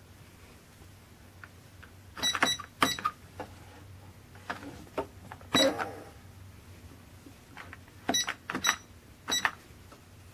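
Keys of a Royal Alpha 601SC electronic cash register being pressed, each press giving a short high beep with a click, about seven at uneven intervals, as a sale is keyed in.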